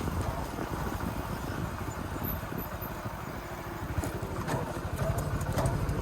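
Small single-cylinder Hero motorcycle engine running as the bike rides along, a steady low pulsing that eases slightly midway and picks up again near the end.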